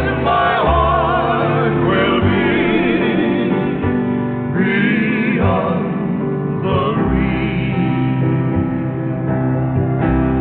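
Recorded song: long sung notes with heavy vibrato over choir-like backing voices and instruments, sounding dull because nothing above about 4 kHz is carried.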